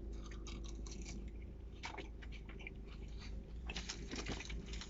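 Someone chewing food, fast-food fries and burger, close to the microphone: scattered small wet clicks and crackles, busiest about two seconds in and again near the end, over a steady low hum.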